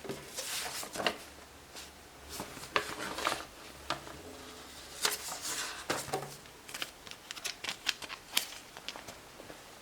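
Hands handling and opening boxed product packaging: irregular rustling with sharp clicks and taps, the clicks coming quicker in the second half.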